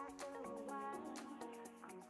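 Quiet background music: a melody of changing notes over a light, regular tick.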